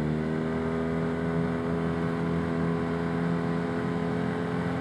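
Arctic Cat Wildcat 700 UTV engine running at a steady cruising speed, a constant drone that holds one pitch throughout.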